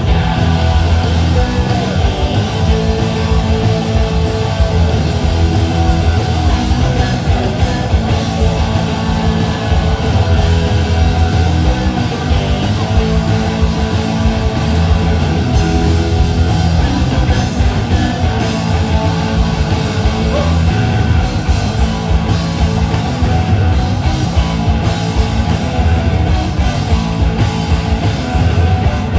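Live rock band playing loud: electric guitars, bass guitar and drums with a steady beat.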